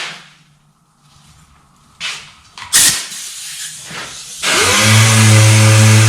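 Dual-action (DA) sander spinning up about four and a half seconds in, then running steadily with a hum and a hiss. Before it come a few knocks and a sharp click.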